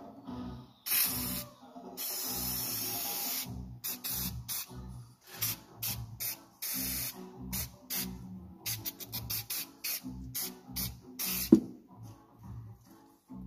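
Aerosol spray can hissing in bursts, aimed at the underside of a car's oil pan: a short spray, then a long one of about one and a half seconds, then a string of quick short squirts, the last of them the loudest.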